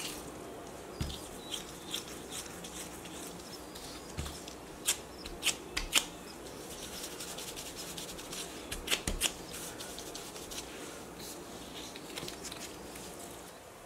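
Gloved hands rolling a soft, bean-paste-filled doughnut dough ball into an oval and pressing it on a work surface: quiet rubbing with a scatter of light taps, clustered about five seconds in and again about nine seconds in.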